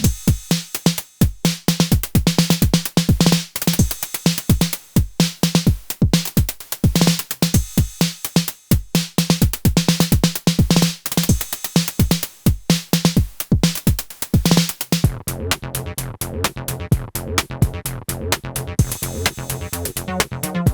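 Techno groove at 128 bpm played on a Moog DFAM, Behringer CAT and Elektron Syntakt: a steady drum-machine beat over a repeated low synth note. About fifteen seconds in, a bass line with moving notes and busier hi-hats comes in.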